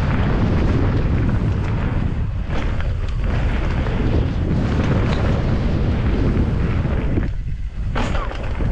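Wind buffeting the camera microphone, mixed with the rumble of a downhill mountain bike running over the trail. It eases for a moment about seven seconds in.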